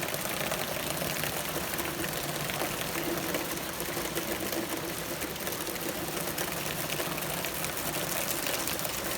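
Rain shower falling steadily, an even hiss of drops.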